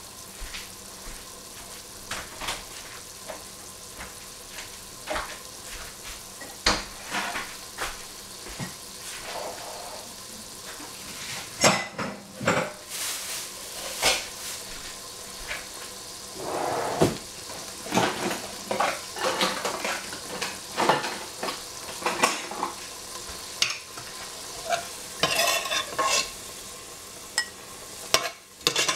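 Ground meat and ginger sizzling in oil in a stainless steel pot, with a metal spoon scraping and clinking against the pot in irregular strokes as it is stirred. The stirring grows busier in the second half.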